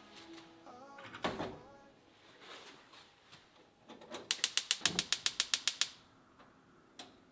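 A heavy clay pot set down on a gas hob's iron grate with a knock about a second in, then the burner's igniter clicking rapidly, about fifteen clicks in a second and a half, until the gas lights.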